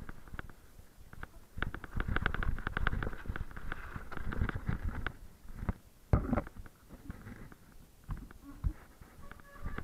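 Mountain bike rattling over a rocky dirt trail on a descent: quick runs of clicks and knocks with a low rumble, busiest in the first half, and a sharp knock about six seconds in.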